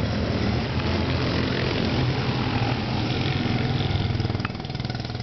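Go-kart engines of about 10 bhp running as karts lap the track, a steady engine note that drops a little in level about four and a half seconds in as the nearest kart pulls away.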